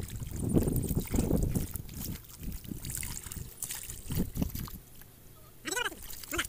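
Hands sloshing and squelching through shallow muddy water, scooping mud in irregular splashes. A short voice-like call comes near the end.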